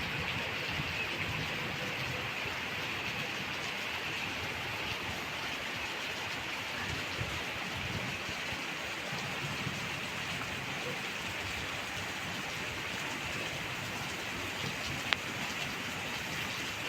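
Light rain drizzling, a steady even hiss, with a single sharp tick near the end.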